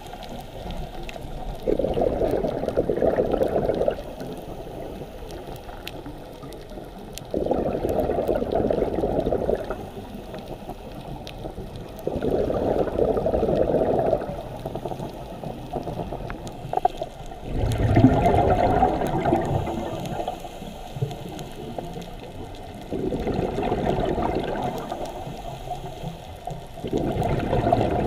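Scuba regulator breathing, heard underwater: six bubbling rushes of exhaled air about five seconds apart, each lasting about two seconds, with quieter breaths in between.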